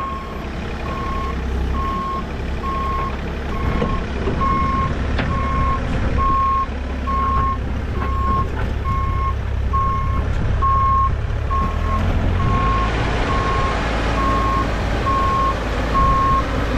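Bobcat compact excavator's backup alarm beeping steadily, about one and a half beeps a second, over its diesel engine running as it reverses. The engine and machine noise grow louder in the last few seconds.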